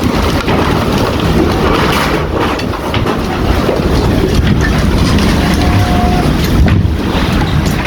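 Strong gusting wind from a tornado buffeting a phone's microphone: loud, rough wind noise with crackling knocks, and a brief steady tone partway through.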